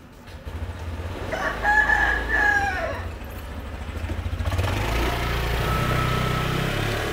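Motor scooter engine running and pulling away, with a rooster crowing once, loudly, about a second and a half in.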